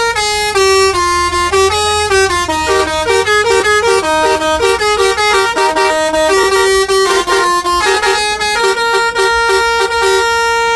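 Bus 'telolet' horn, a multi-note musical air horn, playing a fast tune of short changing notes with a few longer held notes in between.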